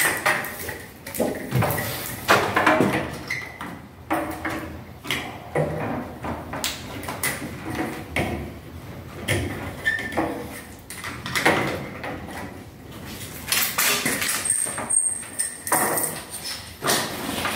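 Plastic diffuser cover being pushed into an aluminium LED strip profile: a string of irregular clicks and scrapes of plastic against the metal channel.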